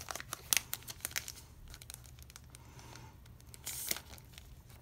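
Thin clear plastic card sleeve crinkling as a photocard is slid out of it: a run of sharp crackles in the first second and a half, then a louder rustle just before the end.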